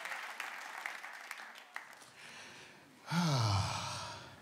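Audience applause thinning out and dying away over the first two seconds. About three seconds in comes a louder, breathy vocal sound into the microphone whose pitch falls for about a second, like a sigh.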